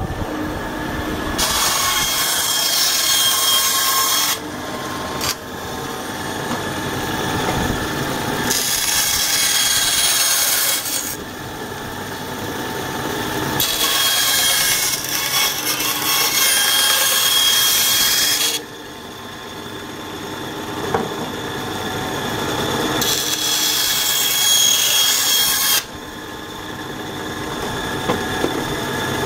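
A small tabletop bandsaw running and trimming excess Kydex thermoplastic sheet from a molded sheath half. Four cuts of a few seconds each bring in a louder, higher rasp that stops abruptly when each pass ends, and the saw's steady running sound carries on between them.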